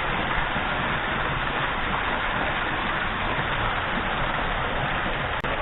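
Steady rush of a small waterfall pouring into a pool, heard close up. The sound cuts out for an instant near the end.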